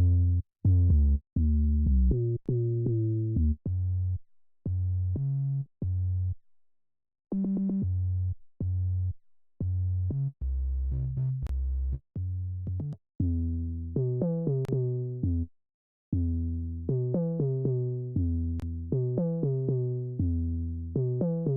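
Solo synthesizer bass line in a dembow pattern: short, separate deep notes that change pitch from note to note, with small gaps between them and two brief pauses, and no drums.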